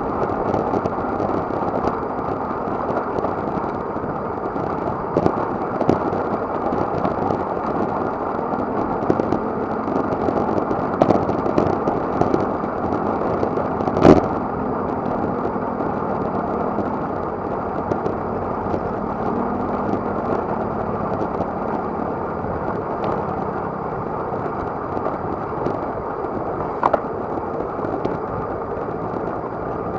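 Steady wind rush over the microphone of a bike-mounted action camera on a moving road bike, with scattered small clicks and one sharp knock about halfway through.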